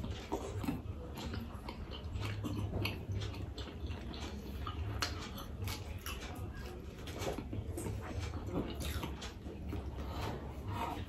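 Close-miked chewing and biting of pizza: a run of short, irregular mouth clicks and crunches over a low steady hum.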